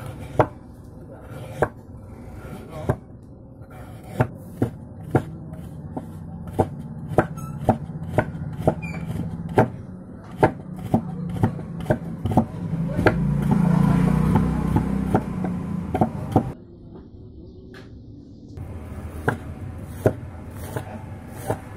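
Wide cleaver-style knife chopping on a wooden cutting board, sharp knocks about one or two a second as it cuts carrot into strips, then quicker chops through spring onions near the end. A low hum swells and fades in the middle and stops suddenly about two-thirds of the way in.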